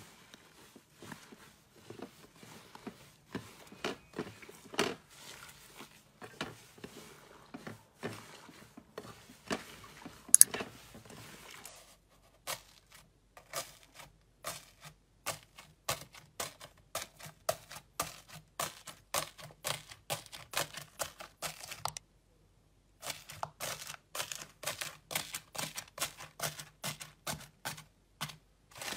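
Hands squeezing and pressing slime, giving a dense run of short crackles and pops, with one sharper, louder pop about a third of the way in. In the second half, an orange slime's grainy crust cracks and crunches under the fingers.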